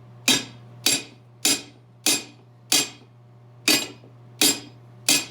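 Hammer tapping on the steel of a wheel's split rim while a tire is being fitted: about eight sharp, ringing metal blows, roughly one every half second or so, with a slightly longer pause past the middle.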